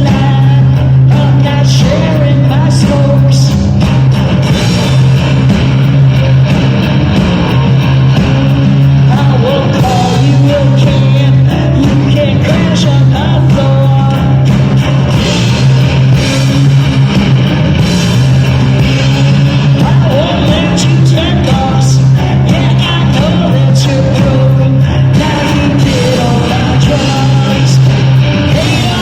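Loud live rock band playing, with a heavy bass note held steady under singing and guitar.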